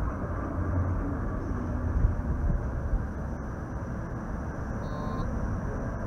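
A 1947 PCC streetcar running toward the listener on its rails, a steady low rumble, with a brief high-pitched tone about five seconds in.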